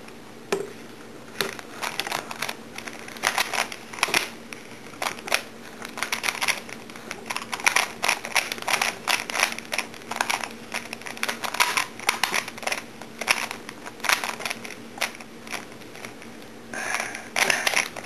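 Rubik's Cube being solved by hand: its plastic layers being turned with irregular clicks and clacks that come in quick runs separated by short pauses.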